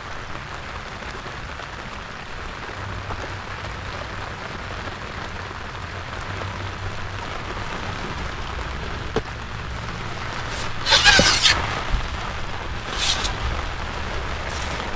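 Steady hiss of light rain falling around an open boat, with two brief louder noises about eleven and thirteen seconds in.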